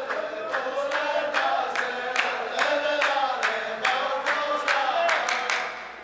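A row of men chanting a poetry-duel verse back in unison, muhawara style, with steady hand claps about two to three times a second.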